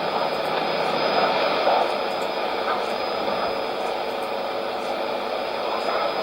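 Shortwave radio reception on 5990 kHz heard through a Sony ICF-2001D receiver. It is a steady rushing hiss of noise and static with a faint high whistle riding on it and no speech. This is the noise-like content of a strange test transmission.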